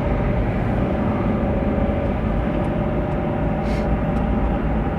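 Road noise inside a moving car: a steady low rumble of tyres and engine, with a faint steady whine that fades out about two seconds in.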